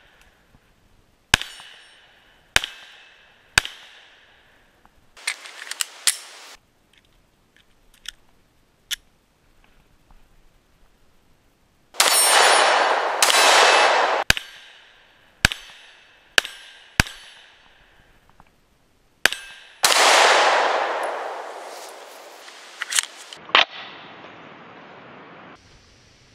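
Glock 43 9mm pistol firing about a dozen shots at an uneven pace, some followed by a ring from steel targets. Two loud stretches of rushing noise, each lasting a few seconds, come about halfway through and again near the end.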